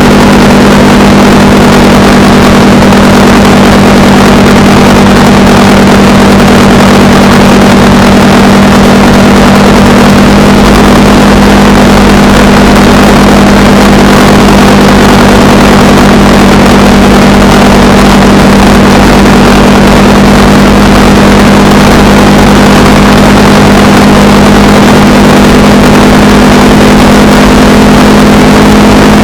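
Motorcycle engine running at a steady cruising speed, its note holding steady, with wind and road noise over it.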